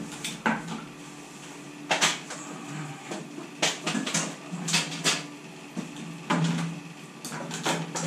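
Electrical plugs being pulled from sockets and power cables handled on a tabletop: a series of separate sharp knocks and clatters, roughly one every second.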